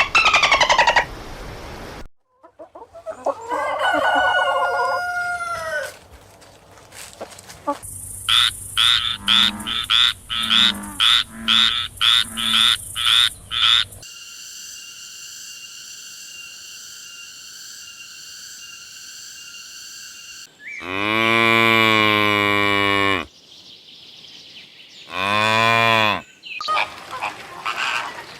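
A string of separate farm-animal recordings, each cut off abruptly: frog croaks at the start, then chicken sounds: quick repeated clucks about twice a second, and strong pitched calls typical of a rooster crowing. In the middle there is a steady held sound lasting several seconds.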